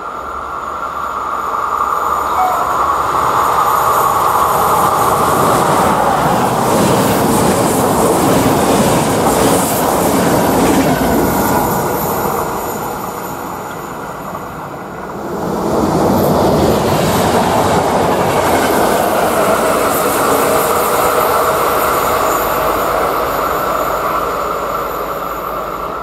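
Electric-hauled passenger train passing at speed on curved track, with loud wheel-and-rail noise that dies away about halfway through. A second train then passes, just as loud, and fades near the end.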